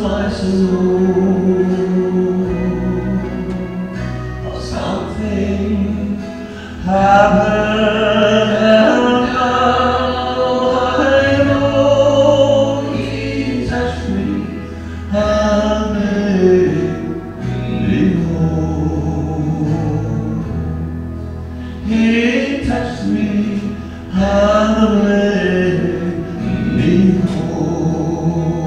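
A man singing a gospel hymn into a handheld microphone in long, sustained phrases, over a recorded accompaniment track.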